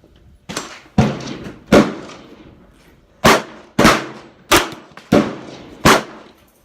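Gunshots: a string of about eight shots at uneven spacing, the first one lighter, each followed by a short echoing tail.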